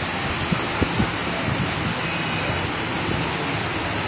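Steady road traffic noise on a rain-flooded road, with a wash of tyre and water noise and a few faint low knocks about a second in.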